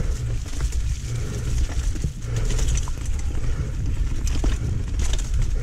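Mountain bike ridden down a wet woodland trail: constant wind rumble on the on-board camera microphone, swelling and easing about once a second, with scattered sharp rattles and knocks from the bike over the rough ground.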